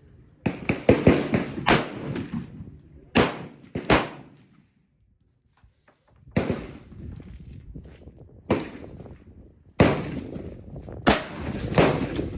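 Gunfire on a shooting range: a string of sharp bangs and thumps at uneven gaps, some close together, with a short silent break about halfway through.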